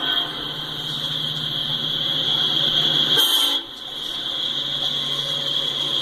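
Diesel freight locomotive's air horn sounding a long chord, with a short break about three and a half seconds in before the next long blast.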